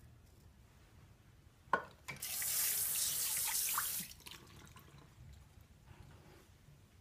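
A sharp knock, then tap water running into a sink for about two seconds before it is shut off, as lather is rinsed from a straight razor mid-shave.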